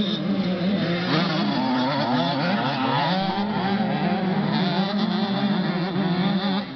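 Several small two-stroke 65cc and 85cc motocross bikes racing, their engines revving up and down with overlapping, constantly changing pitches as they accelerate and ease off.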